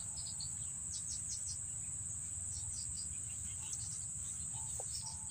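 Insects trilling steadily at a high pitch, with scattered short bird chirps, over a continuous low rumble.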